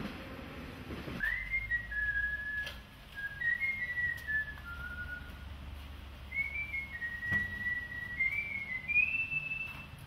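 A person whistling a slow tune, one clear note at a time with small slides between them, starting about a second in and ending on a higher held note.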